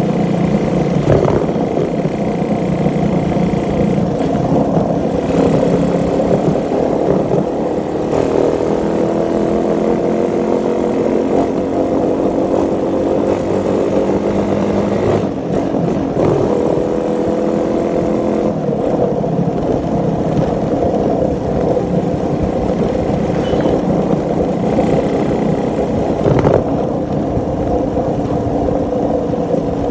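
Motorcycle engine running under way, its pitch drifting slowly up and down with speed, over a low rumble of wind on the microphone, with a few brief knocks.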